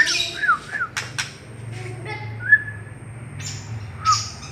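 White-rumped shama (murai) singing: quick runs of short, clear, arched whistles, sharp clicks, and a couple of harsh rasping notes near the end. A low steady hum lies underneath.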